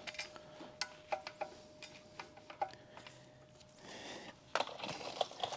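Quiet tool handling: scattered light clicks and taps of metal tools and clutch parts being handled, over a faint steady hum that stops a little past halfway.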